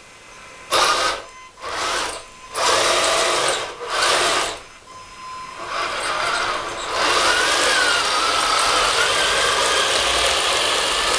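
Electric drive motors and plastic gearboxes of a 1/16 scale RC tracked model whirring, in four short bursts of a second or less and then running steadily from about halfway through.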